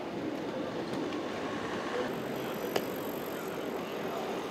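Street ambience: a steady hum of distant traffic and murmuring voices. A sharp click comes a little under three seconds in, and a faint high whine starts about two seconds in.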